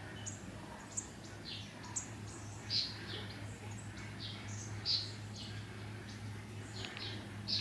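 Small birds chirping: short, high chirps every second or so, over a steady low hum.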